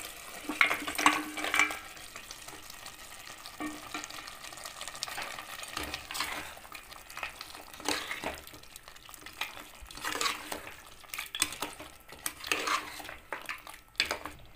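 A metal spoon scraping and clinking against a steel bowl and pot as boiled trotters are pushed into a simmering masala gravy, loudest in the first two seconds, then irregular scraping strokes as the thick curry is stirred, with a light sizzle beneath.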